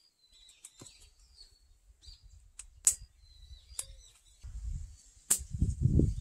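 A few sharp knocks and clicks, then low thumping and rumbling near the end as a heavy log is turned and shifted by hand on its wooden supports. Small birds chirp in the background.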